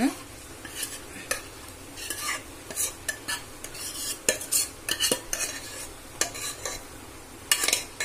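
Steel spoon scraping a thick curry out of a nonstick pan into a kadai of fried coconut: irregular clinks and scrapes of metal on the pans, with a faint sizzle underneath.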